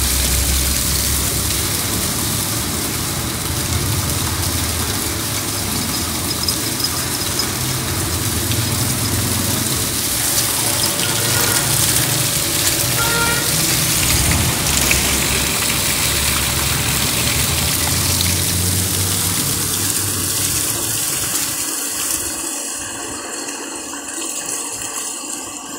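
Water gushing in a strong, steady stream from the PVC discharge pipe of a freshly repaired drilled well and splashing onto the ground: the well is pumping again. The rush grows quieter and thinner in the last few seconds.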